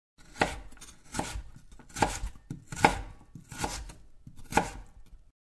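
Knocking on a front door: six slow, evenly spaced knocks, with softer scratching between them.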